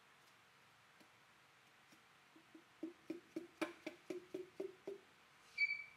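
Piston being tapped down into a cylinder bore through a tapered ring compressor with the end of a hammer handle: an even run of short hollow knocks, about three or four a second, starting about two and a half seconds in, with a sharper ringing strike near the end.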